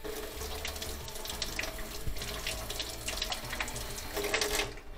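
Water running from a faucet into a sink in a steady rush, shut off abruptly shortly before the end.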